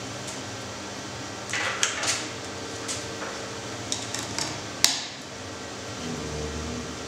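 Clicks, knocks and rustling as patch cables and small audio boxes are handled and a jack is plugged in, with the sharpest click about five seconds in. Underneath runs a steady hum and hiss from the powered audio setup.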